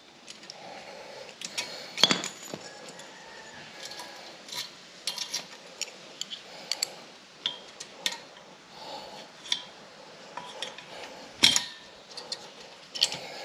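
Metal clinking and scraping as exhaust springs are stretched with a spring-puller tool and hooked onto a motorcycle exhaust. There is a sharp click about two seconds in and a louder one near the end.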